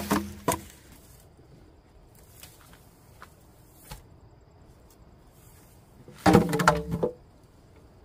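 Sharp wooden knocks: a few hard strikes at the start, faint ticks in between, and a quick cluster of strikes with a short ringing tone about six seconds in.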